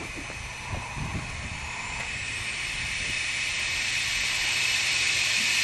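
Steady hiss of air that grows louder through the second half, with a few soft knocks in the first second and a half as the big flywheel is rolled over by hand.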